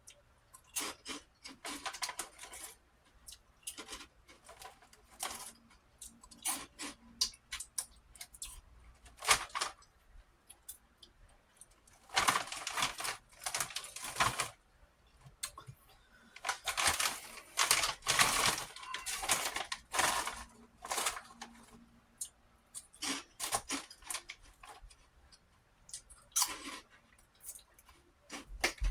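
Prawn crackers being crunched and chewed close to the microphone: irregular crisp crackles, with longer, denser stretches of crunching now and then.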